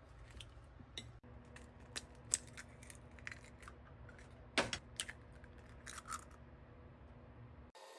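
Irregular small clicks, taps and rustles of objects being handled at close range, over a faint steady low hum.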